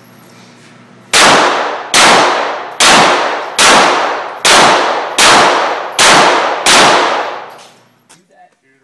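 Glock pistol fired eight times at a steady pace, roughly one shot every 0.8 seconds, each shot ringing out in a long echo.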